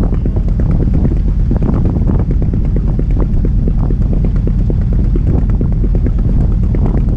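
An Albin Vega sailboat's auxiliary engine running steadily as the boat motors along, a low, loud running sound with a fast, even beat.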